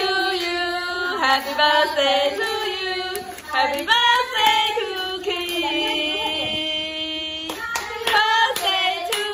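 A female voice singing a melody with long held notes, with scattered hand claps.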